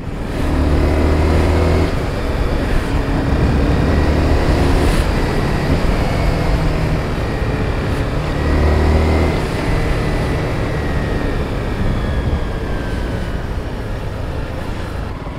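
Honda sport motorcycle's engine running steadily at a low pitch while riding, under a constant rush of wind and road noise.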